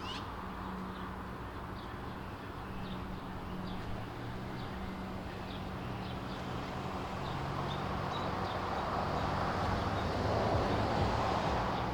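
Steady ambient background noise with a low hum and faint, short high chirps scattered through it. The noise swells a little toward the end.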